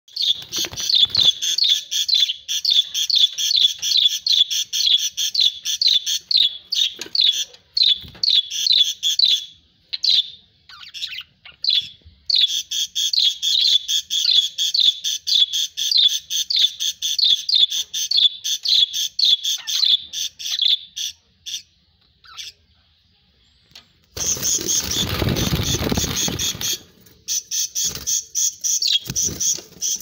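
Budgerigars chirping in a fast, even run of short calls, several a second, with a pause about two-thirds of the way through. Near the end a loud burst of rustling noise lasts about three seconds.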